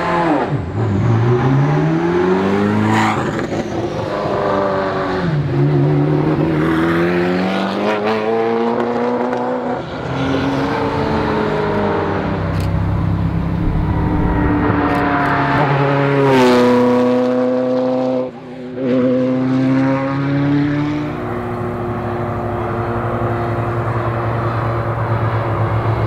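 Ferrari F40 LM's twin-turbo V8 accelerating hard through the gears, revs climbing and dropping back at each upshift. About two-thirds of the way in the car passes close by at speed, loudest there, then runs on at a steadier engine note.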